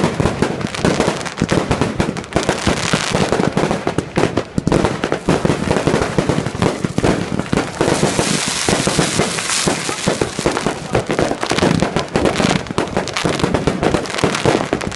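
Fireworks going off in rapid, continuous crackling pops, with a denser hissing crackle about eight seconds in.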